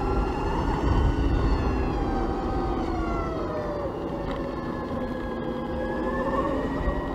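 BMW CE 04 electric scooter's motor whining, several tones together that fall in pitch through the middle and climb again near the end as road speed changes, over low wind rumble on the microphone.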